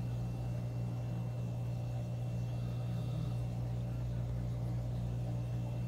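Steady low electrical hum of fish tank equipment, one unchanging low tone with no breaks.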